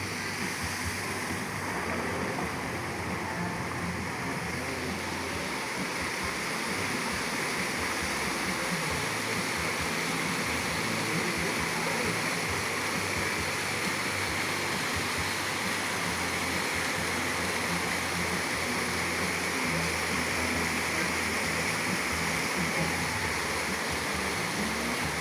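Fountain water splashing and falling in a steady rush.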